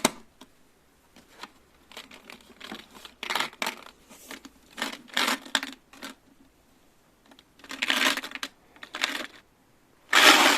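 Marbles rolling and clattering along a marble-run track, in separate bursts of rattling clicks with short pauses between.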